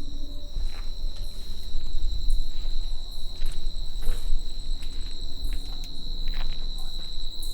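Crickets trilling: a steady, high, unbroken chorus, with a few short clicks and knocks over it.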